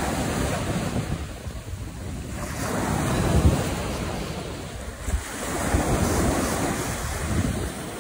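Surf breaking on the beach, swelling and falling back every few seconds, with wind rushing over the microphone.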